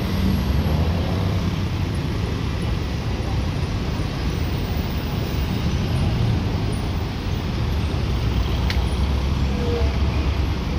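Steady heavy road traffic: cars, vans, trucks and motorcycles running along a multi-lane road, a continuous low engine rumble with tyre noise, and a single faint click near the end.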